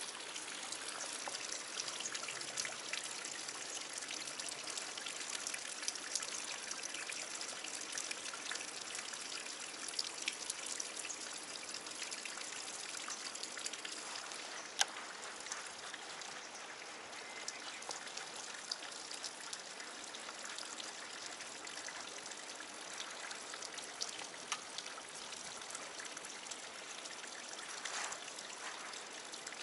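Water trickling and dripping steadily, with many small drops ticking through it, and a single sharper click about fifteen seconds in.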